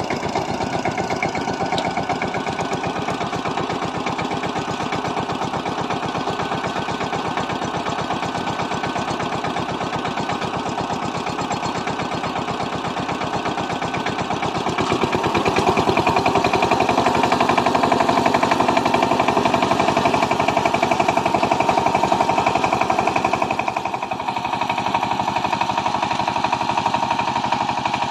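Kamco power tiller's single-cylinder diesel engine running with a rapid, even pulse while ploughing. It grows louder about halfway through and eases briefly near the end.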